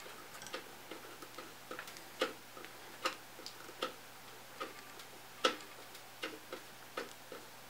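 Screwdriver driving a mounting screw through a computer case's sheet-metal drive bay into a DVD drive: an uneven string of light metallic clicks and ticks, with a few sharper clicks among them.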